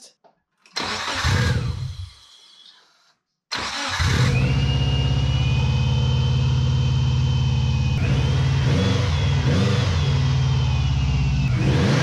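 Subaru EJ20 turbo flat-four engine started as a final test of its rebuilt coil pack wiring connector. It catches about three and a half seconds in and then idles steadily, with a thin high whine over the idle. A brief whir comes first, about a second in.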